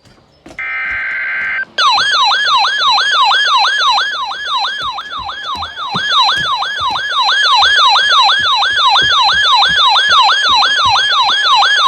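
Emergency Alert System broadcast: a roughly one-second burst of buzzing SAME header data, then a loud electronic siren-like alert tone that sweeps downward over and over, about two and a half times a second, signalling an incoming warning.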